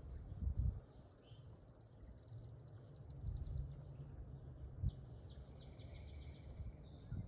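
Outdoor nature ambience: rapid high chirping trills come and go over a low steady rumble, with a couple of soft low thumps.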